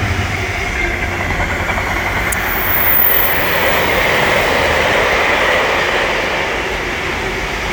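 Freight train hauled by a GB Railfreight Class 66 diesel locomotive passing: a steady rumble of wheels on the rails, loudest about three seconds in, then slowly easing.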